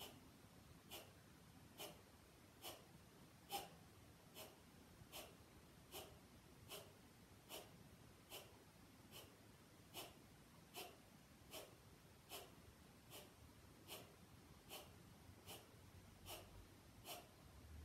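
Kapalbhati breathing: a steady run of short, forceful exhales snorted out through the nose, about one every 0.8 seconds, each a brief faint puff with the inhale passive and unheard between them. Each puff is driven by the belly snapping inward.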